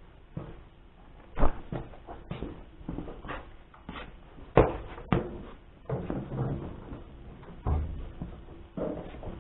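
Irregular knocking and clattering, with three sharp bangs, one about a second and a half in and two close together near the middle.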